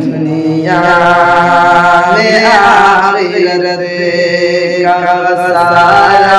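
A young man's solo voice chanting melodically in long held notes, a religious verse recited in a sung style.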